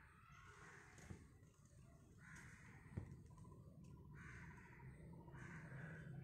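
Faint, harsh bird calls recur every second or two over quiet background hum, with one sharp knock about three seconds in.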